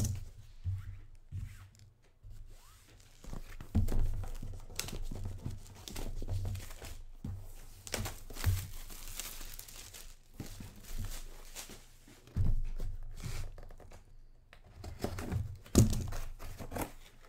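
Plastic shrink-wrap being torn and crinkled off a boxed product, crackling irregularly, with a few dull knocks as the box is handled.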